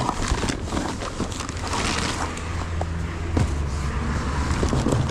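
Crinkling and rustling of a foil-lined insulated delivery bag and cardboard pizza boxes being slid out of it, a busy run of small crackles and scrapes over a low steady hum.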